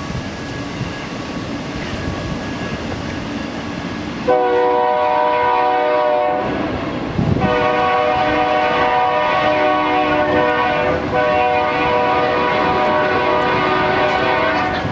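A train horn sounding a chord of several tones in two long blasts. The first starts about four seconds in and lasts about two seconds; the second follows about a second later and holds for about seven seconds, with a brief dip midway. Before the horn there is a low rumbling noise.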